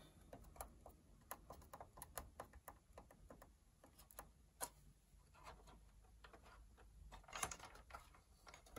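Faint, irregular clicks and taps of fingers pressing small buttons and handling the opened NEC M300X projector's circuit board and plastic housing, with a denser run of taps about seven seconds in. The projector does not start: its lamp time has expired, locking it out.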